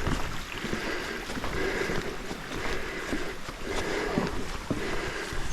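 Footsteps on a forest trail, irregular ticks and scuffs, with wind rumbling on the microphone.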